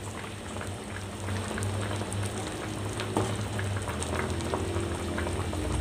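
Fish-head curry boiling in a wok: a steady bubbling and crackling with faint pops, over a low steady hum.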